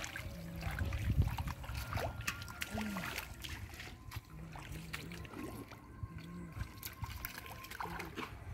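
Shallow muddy water sloshing and dribbling as hands grope through mud and wet grass, with irregular small splashes, a little louder about a second in.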